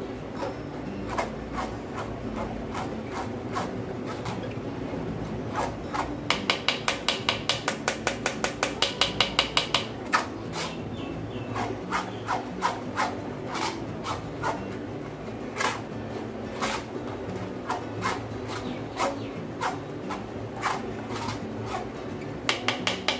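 Blended mosambi pulp being scraped and pressed around a plastic mesh strainer to push the juice through. The scraping strokes are irregular, with a faster, louder run of about five strokes a second partway through.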